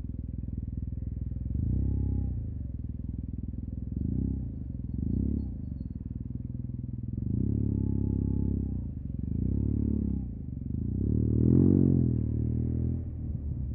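Yamaha TMAX 560 maxi-scooter's parallel-twin engine through an Akrapovic carbon full exhaust, idling low between repeated short bursts of throttle in stop-and-go riding. The deep exhaust note swells and falls about six times, with the longest and loudest rev near the end.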